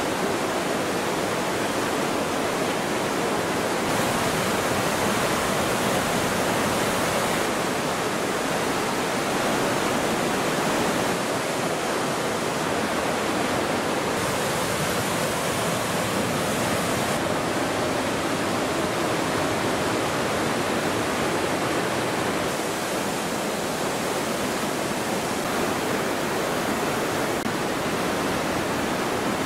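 Fast glacial river rushing over boulders through a narrow rock gorge: a steady, loud rush of whitewater, its hiss changing slightly in brightness several times.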